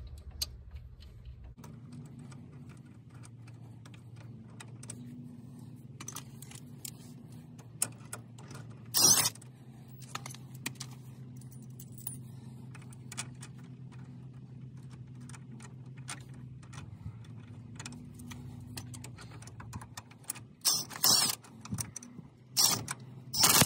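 Metal hand tools clicking and clinking on the threaded rod and nut of a homemade wheel hub puller as it is tightened to press the hub out, with a few louder metallic clanks, about nine seconds in and three times near the end. A steady low hum runs underneath.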